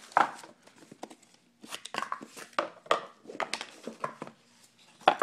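Cardboard packaging being handled: irregular rustles, scrapes and light knocks. The sharpest knocks come right at the start and again about five seconds in.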